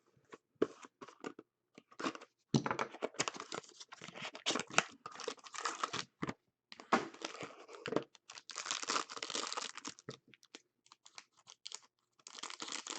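Trading card pack wrappers being torn open and crinkled by hand, in irregular bursts with short pauses between.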